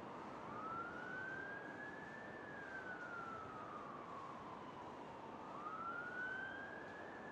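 A distant emergency-vehicle siren wailing. It rises and falls slowly, about one cycle every five seconds, with the next rise starting near the end, over a steady hum of city traffic.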